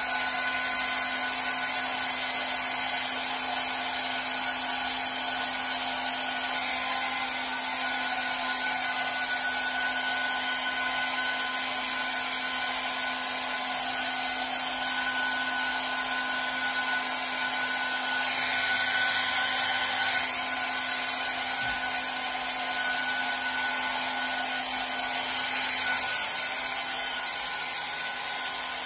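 Handheld hair dryer running steadily, blowing air onto hair, its motor giving a steady whine under the rush of air. The sound swells briefly about two-thirds of the way in, then eases slightly near the end.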